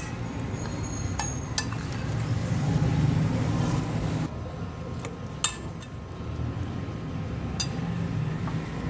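Metal spoon clinking against a glass mixing bowl as spiced raw chicken is stirred: a few sharp clinks, the loudest about halfway through, over a steady low rumble.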